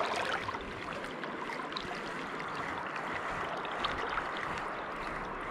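River water flowing steadily, an even rush, with a few faint ticks scattered through it.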